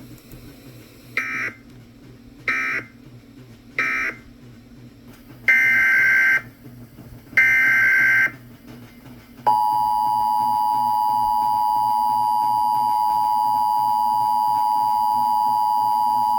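Emergency Alert System signal: a string of screeching digital data bursts (the SAME code), three short ones and then two longer ones, followed about halfway in by the steady two-tone EAS attention tone, which holds without a break.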